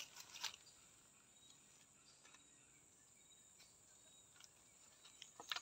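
A caught fish dropped into a plastic bucket: a sharp knock as it lands and another about half a second later. After that, only the faint steady high buzz of forest insects.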